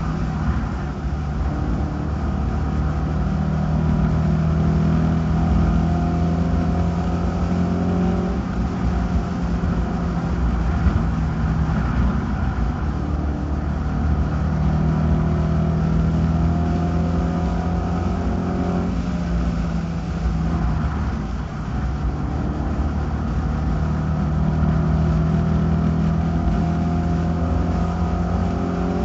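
Race car engine heard from a camera on the car at racing speed. The engine note swells each time it accelerates down a straightaway and eases off through the turns, about three times.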